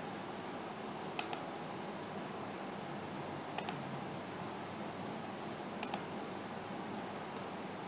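Computer mouse button double-clicking three times, each a quick pair of sharp clicks about two seconds apart, opening folders in a file dialog, over a steady background hiss.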